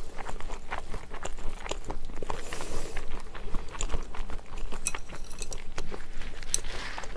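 Close-miked chewing of a mouthful of egg fried rice topped with salted squid (ojingeo jeotgal): many small wet mouth clicks and soft crunches.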